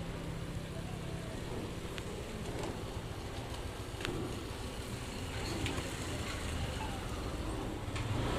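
Motorcycle taxi's engine running with road noise as it rides slowly, its steady low hum giving way to a rougher rumble about a second in, with a few faint ticks.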